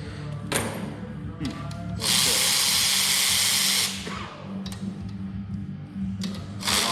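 Power tool running in bursts with a loud hissing noise: one burst of about two seconds starting two seconds in, and another starting near the end.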